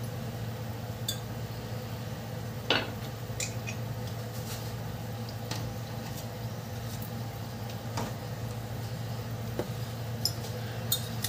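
Scattered clinks and knocks of kitchen utensils and containers, the loudest about two and a half seconds in, over a steady low hum.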